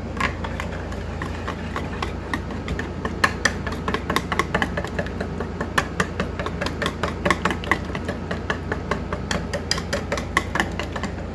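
Kitchen utensil clicking and knocking against a dish over and over, several quick irregular taps a second, over a steady low hum.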